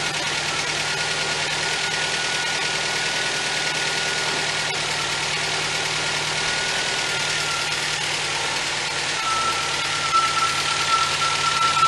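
1977 MGB's 1.8-litre B-series four-cylinder engine idling steadily and vibrating a lot, with a steady high whine running alongside it.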